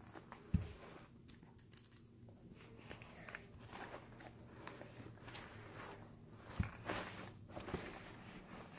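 Clothes rustling and handling noise as a baby doll is dressed, with two dull thumps, one just after the start and one about two-thirds of the way through.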